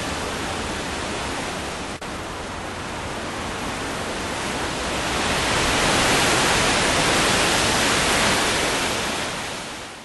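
A steady rushing noise with no tune in it, briefly dropping out about two seconds in, growing louder about halfway through and then fading out at the very end.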